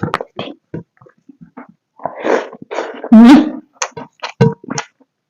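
Close-miked eating sounds: a string of wet mouth clicks and lip smacks while chewing pork curry and rice, with a loud breathy vocal exclamation about three seconds in.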